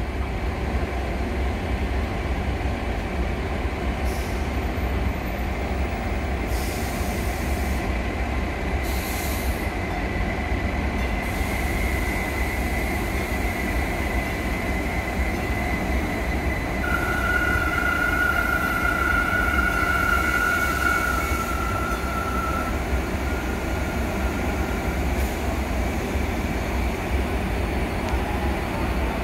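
Stadler FLIRT diesel multiple unit rolling into the platform and slowing to a stop, with a steady low rumble throughout. Just past halfway a high, steady squeal from the wheels or brakes rings for about six seconds as it brakes.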